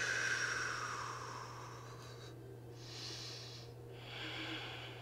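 A woman breathing audibly through an effortful hold of a yoga arm-balance inversion. A long exhale fades over the first second, then two more breaths come about three and four and a half seconds in.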